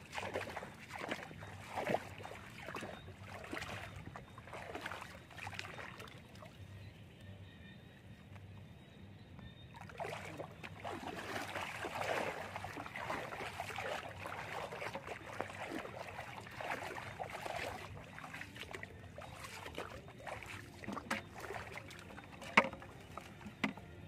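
Shallow water sloshing and splashing with leafy branches rustling, as someone moves through flooded marsh edge among shrubs. There is a sharp click near the end.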